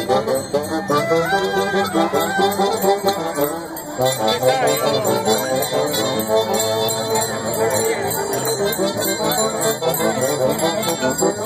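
Traditional negritos dance music: a band melody over quick, steady jingling of bells. The music dips briefly just before four seconds in, then picks up again.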